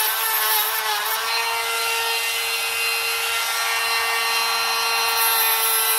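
Dremel rotary tool running at a steady high speed, its whine held at one pitch, with a grinding hiss as the spinning bit works around the small metal wire connectors.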